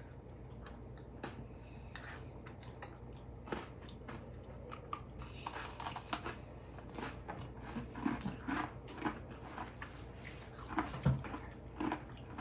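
Faint chewing and crunching of Oreo cookies, with scattered small clicks and crackles.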